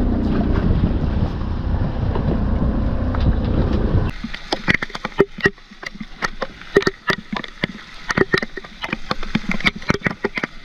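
Wind buffeting the microphone on a boat for about four seconds, then it cuts off suddenly to a run of sharp, irregular knocks and clicks, several a second, as spearfishing gear is handled close to the camera.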